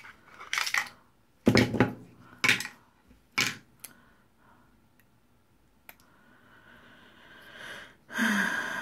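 Hands rummaging through a small box of craft supplies for closure magnets: a series of short knocks and rattles, then a longer rustling scrape near the end as the magnets are handled.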